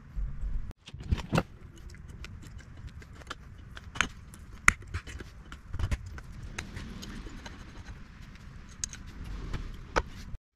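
Pliers working a cotter pin out of a Yamaha 2.5 hp outboard's propeller shaft, then the nut and propeller coming off: irregular small metal clicks, clinks and scrapes.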